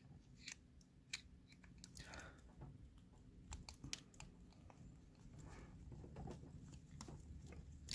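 Faint, scattered clicks and short scrapes of a screwdriver tip turning and slipping in the stripped Phillips-head screw of a brass padlock: the screw is not coming out.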